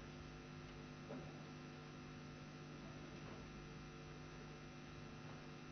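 Faint, steady electrical mains hum, a stack of constant tones with no speech over it. A brief faint noise comes about a second in.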